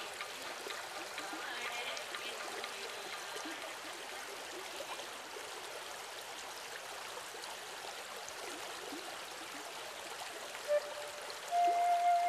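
Steady sound of flowing water. Music with held notes comes in about a second before the end.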